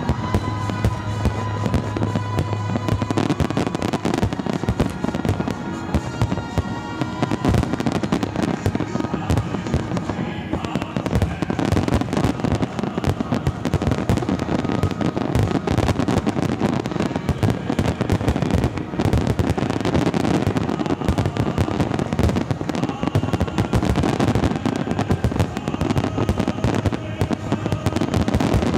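Fireworks display: aerial shells and ground fountains going off in rapid, continuous volleys of bangs and crackles, with music playing underneath.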